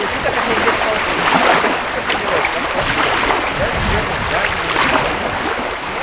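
Small sea waves washing onto a beach, a steady wash of water with splashing and gurgling; the wash swells about a second in and again around three seconds.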